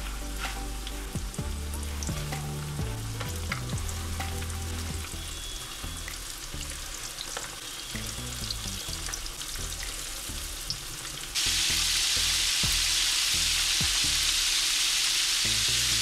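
Floured chicken pieces deep-frying in a pan of sunflower oil, the oil sizzling steadily with small pops and clicks as pieces go in. About eleven seconds in the sizzle jumps abruptly louder and brighter, a full pan of chicken frying hard.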